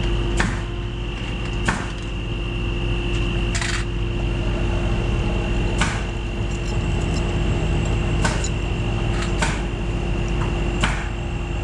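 Boom truck's engine running steadily under load, with about seven sharp metal clanks as the lifting chains and hardware are unhooked from the precast concrete septic tank just set in the hole.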